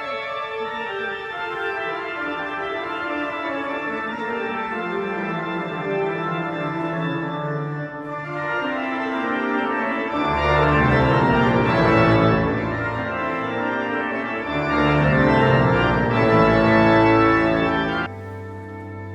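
Pipe organ playing sustained chords over a slowly descending line, then swelling to a louder, fuller sound with deep pedal bass about halfway through. Near the end it drops suddenly to a softer passage.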